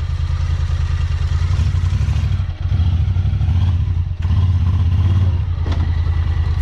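Side-by-side UTV engine running at low speed, a steady pulsing drone that dips briefly twice, about two and a half and four seconds in. A couple of short knocks come near the end.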